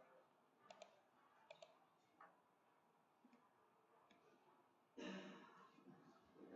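Near silence with a few faint clicks, some in quick pairs, then a breathy exhale about five seconds in.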